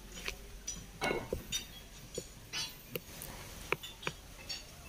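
Scattered sharp metallic clinks and knocks, about seven of them at uneven intervals, from work among steel screw jacks and bricks during a house lifting.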